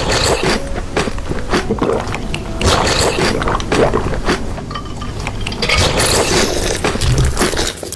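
Wet eating sounds: squishing and chewing, with a dense run of small clicks and crackles.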